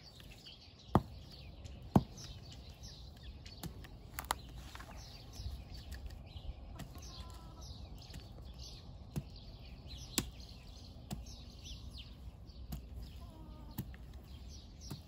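Short-handled hoe chopping into dry, packed soil, a sharp strike every second or few. Small birds chirp throughout.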